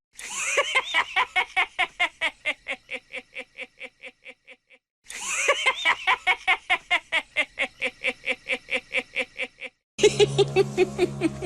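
Chucky's evil laugh: a rapid, high 'heh-heh-heh' cackle of about five beats a second that fades away over about four and a half seconds, played twice in a row. Near the end another laugh starts over low, steady music.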